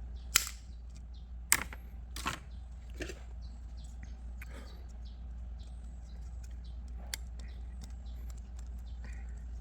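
A few sharp clicks and knocks in the first three seconds, then lighter scattered ticks, over a steady low hum.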